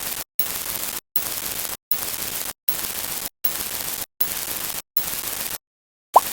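Static hiss cut into a regular series of bursts, each a little over half a second long with short silent gaps, eight in a row. After a slightly longer gap near the end, a short rising chirp sounds just before the hiss starts again.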